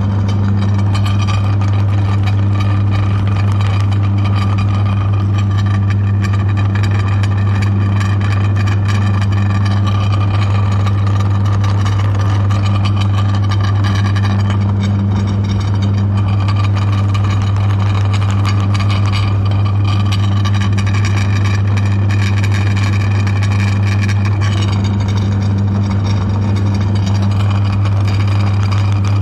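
Electric meat grinder running steadily with a strong, even low hum.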